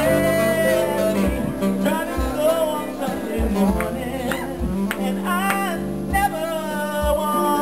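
Live cabaret ensemble playing a slow song: acoustic piano with saxophone, and a male voice singing into a microphone.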